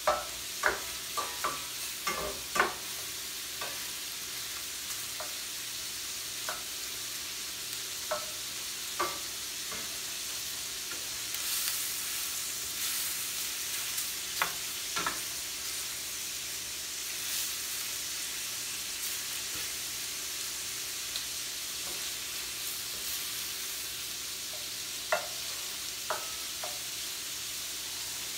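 Shrimp sizzling in stainless steel skillets, with a steady frying hiss. A spatula stirs them, clicking and scraping against the pans several times in the first few seconds and again now and then.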